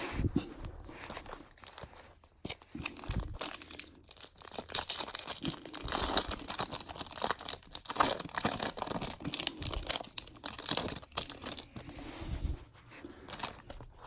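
Foil wrapper of a Topps Chrome trading card pack being torn open and crinkled, a dense run of crackling and tearing that eases off near the end.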